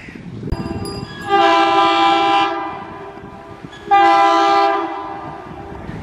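Indian Railways diesel locomotive sounding its air horn twice, about two and a half seconds apart, each blast a chord of several tones; the first lasts about a second, the second trails off.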